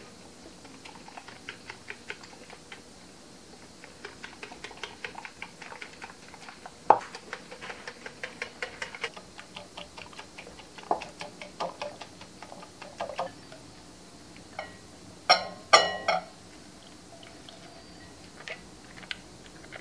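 A whisk with pink silicone wires beating flour and seasoning into a batter in a glass bowl: a quick, rapid ticking against the glass that comes in runs and bunches. One sharp knock comes about 7 seconds in, and two louder knocks come about three-quarters of the way through.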